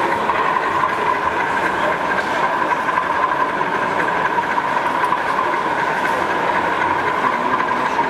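Model BR Class 37 diesel locomotive running along a layout. It makes a steady drone with a constant high whine that holds the same pitch throughout.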